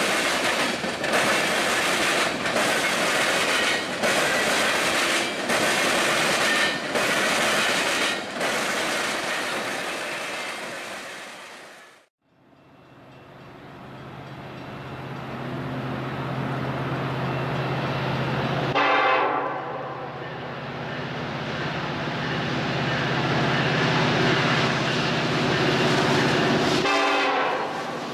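Freight cars rolling past close by, wheels clicking over rail joints about every second and a half. After a cut, Norfolk Southern diesel locomotives approach with a steady engine drone that grows louder, and the horn sounds briefly twice.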